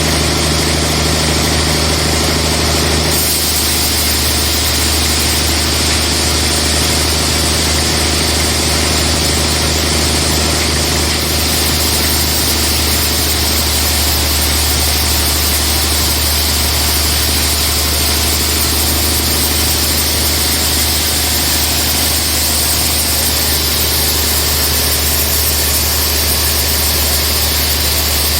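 Sawmill machinery running with a loud, steady, engine-like drone; its tone shifts slightly about three seconds in.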